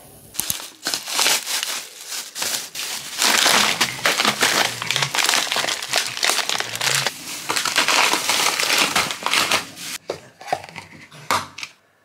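Thin plastic bag crinkling and rustling loudly as hands handle it, with a packet of frozen berries inside; a few light knocks near the end.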